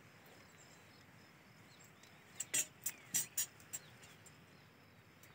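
A quick run of five or six sharp, high clicks and rustles about halfway through, over faint steady background hiss.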